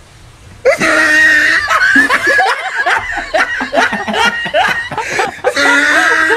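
Loud laughter with shrill, squealing cries, starting suddenly under a second in.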